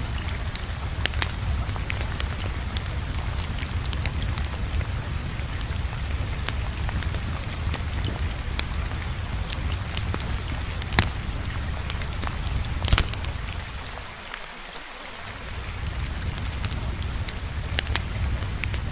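Steady rain-like rushing noise with a low rumble underneath and scattered sharp crackles, dipping briefly about fourteen seconds in.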